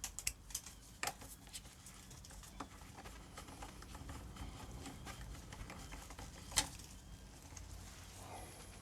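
Scattered small clicks and taps of hand tools being handled, such as a Torx bit being fitted to a driver, with a cluster of clicks in the first second or so and one sharper click about six and a half seconds in.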